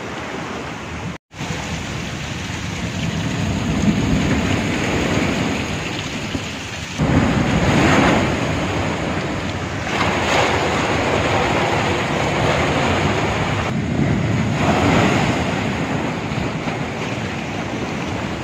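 Storm-surge sea waves breaking over a low seawall, with foaming seawater rushing across flooded ground. The rushing noise swells loudly in several surges, one after another, with a momentary break near the start.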